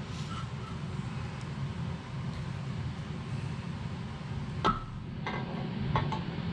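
A few metal clinks and knocks as the pinion gear is fitted into a GM 12-bolt differential housing: three in the last two seconds, the first the sharpest with a short ring. A steady low hum runs underneath.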